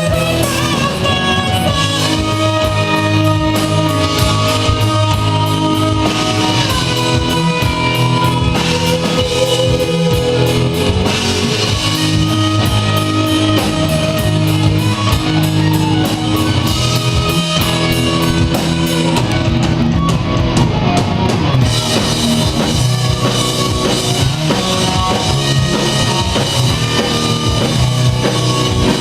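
Rock band playing: drum kit, guitar and bass in a loud, steady groove. The cymbals drop out for about two seconds about two-thirds of the way through.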